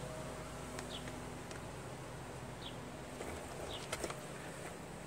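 Quiet outdoor background with a short, high chirp repeating about every second, and a few faint clicks.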